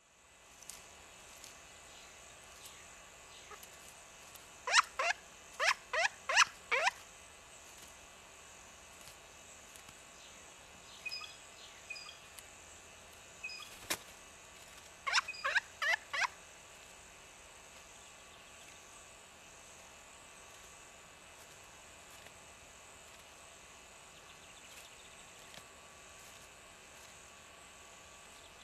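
Pileated woodpecker calling in two short series of loud notes, each falling in pitch: about five notes, then four more some ten seconds later. A single sharp knock comes just before the second series.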